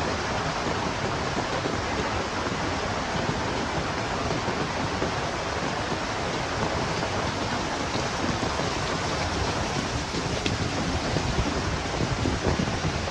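Heavy rain falling in a steady, dense hiss, with gusting wind rumbling underneath that rises a little toward the end.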